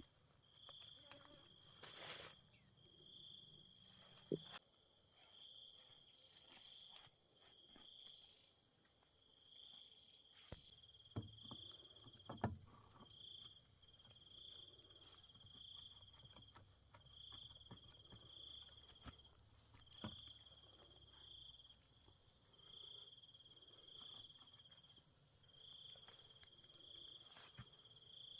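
Faint, steady chorus of insects: high constant trilling with a chirp pulsing about once a second. Scattered small clicks and knocks, the loudest about twelve seconds in.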